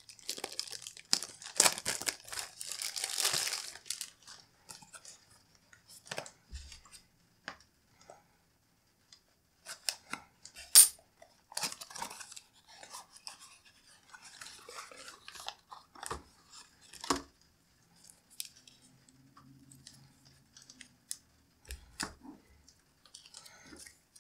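Hands unpacking small packaging: crinkling and tearing of a plastic bag at first, then scattered taps, clicks and cardboard rustling as a small cardboard box is opened. A loud single click about eleven seconds in.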